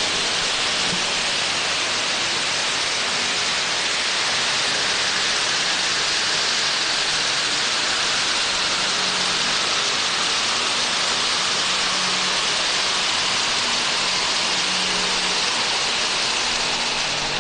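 Fountain fireworks along the top of a ceremonial fireworks cart spraying sparks: a loud, steady, bright hiss with no separate bangs.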